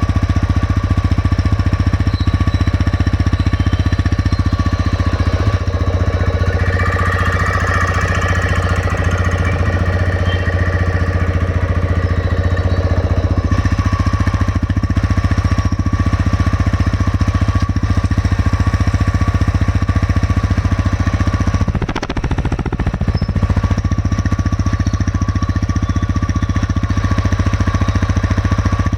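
TVS Raider 125's single-cylinder engine running steadily at idle, with a fast, even ticking knock. The owner takes the knock for a tappet problem, with the valves slow to open or close. The sound dips briefly about three-quarters of the way through.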